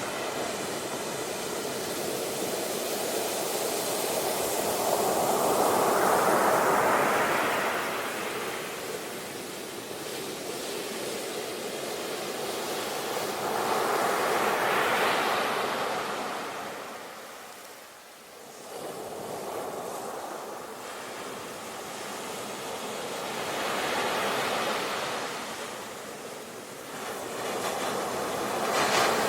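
Sea waves washing ashore in slow surges, each swelling and fading over several seconds, with a steady rush of surf between them.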